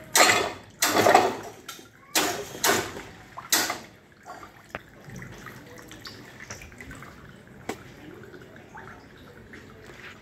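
Water splashing in short hissing bursts, five of them in the first four seconds, then a quieter steady wet hiss with a couple of sharp clicks.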